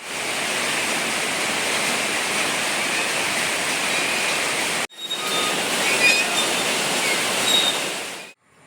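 Steady rushing noise, like water running. It breaks off sharply about five seconds in, starts again at once, and stops just before the end.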